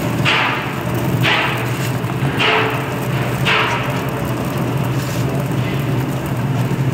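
Paddy roaster machine running with a steady motor hum while its rotating mesh drum sheds hot roasted paddy, the grain spilling out in a rasping rush about once a second for the first four seconds; after that only the hum carries on.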